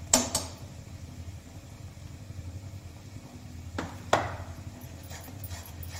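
A metal spoon clinks against an aluminium kadhai, knocking turmeric powder into the frying masala: two sharp ringing knocks at the start and two more about four seconds in. A steady low hum runs underneath, and a few faint ticks follow near the end.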